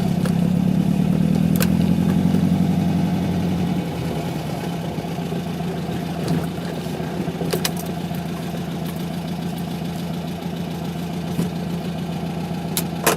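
VW Beetle 1600's air-cooled flat-four engine running, heard from inside the cabin: a steady hum, louder for the first four seconds, then settling to a lower, even level.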